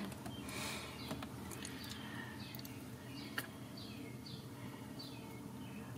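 Very young Ragdoll kittens mewing faintly: a string of short, high cries that fall in pitch, about two a second in the second half.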